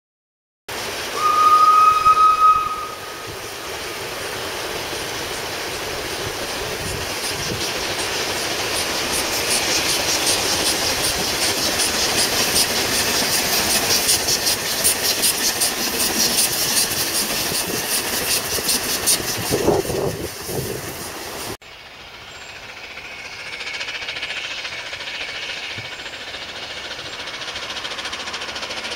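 Double-headed narrow-gauge steam locomotives Palmerston and Taliesin on the move. A single steam whistle blast sounds about a second in, then the locomotives give a steady rhythmic working beat. About 22 seconds in it cuts off abruptly to a quieter, more distant run of the same pair.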